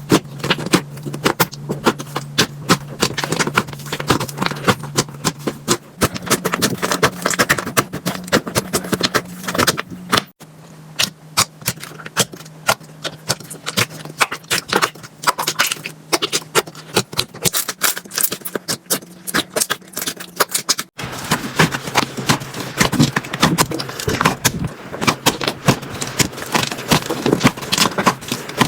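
Slime being squeezed and pressed by hand, giving dense, irregular crackling and popping clicks. The sound breaks off abruptly twice and starts again.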